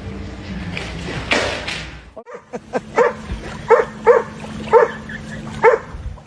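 A dog barking, about six sharp barks over three seconds, starting a couple of seconds in.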